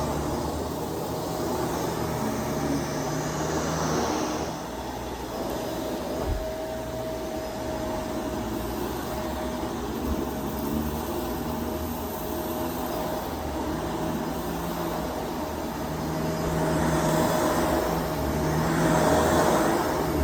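Shark DuoClean PowerFins vacuum cleaner running, a steady motor whine over a constant airy rush that grows louder near the end.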